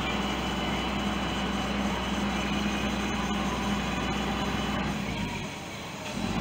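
Fire truck engine running steadily at idle, most likely the aerial tower truck's engine powering the raised platform; it dips briefly near the end and comes back up.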